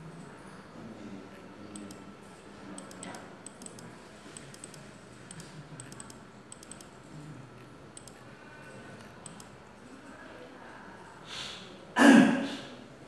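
Scattered faint computer-mouse clicks over a low murmur of voices, then one sudden loud noise about twelve seconds in that dies away within a second.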